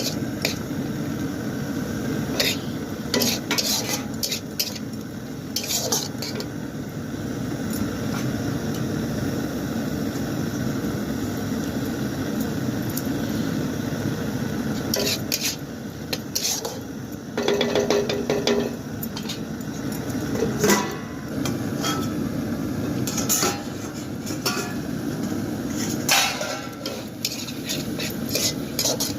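A metal spoon stirring and scraping in a cooking pan, with frequent short clinks, over a steady sizzle of food frying.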